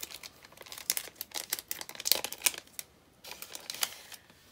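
Clear plastic packaging being handled and opened by hand, crinkling in quick irregular rustles and clicks. The crinkling is dense at first, pauses about three seconds in, and then comes in a few sparser rustles.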